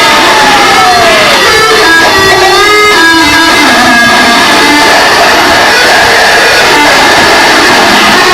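Loud, dense noise music played live: a distorted wall of sound, very loud throughout, with pitched tones that slide down in the first second or so and then wobble and step around beneath it.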